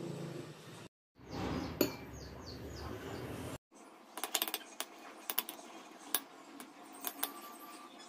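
Metal tongs clinking against a glass bowl again and again, in sharp irregular clicks, as cooked spaghetti is tossed with butter. Earlier, a noisy stretch with a single sharp clink.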